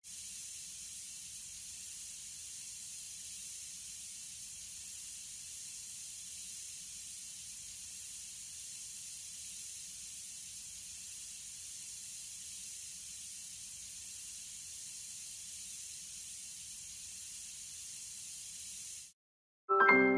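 Steady high hiss of an ultrasonic dental scaler tip spraying irrigation water, cutting off abruptly about nineteen seconds in. Near the end a short, louder musical chime starts and begins to fade.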